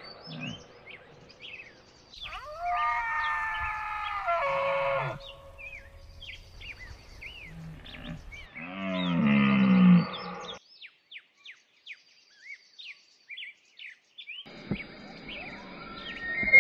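Red deer calling: a drawn-out call from about two seconds in that falls in pitch at its end, then a louder, lower call with a dropping pitch around nine seconds in. Small birds chirp throughout, and a different, noisier sound comes in near the end.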